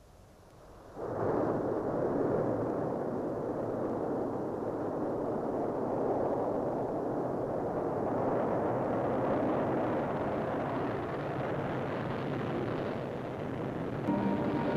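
Rocket engine at liftoff: a steady, loud rushing noise that starts about a second in and keeps going. Music comes in near the end.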